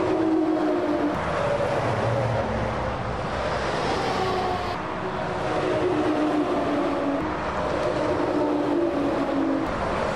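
Heavy lorries passing at motorway speed: eight-wheel tipper lorries go by one after another, with engine drone and tyre noise over continuous traffic.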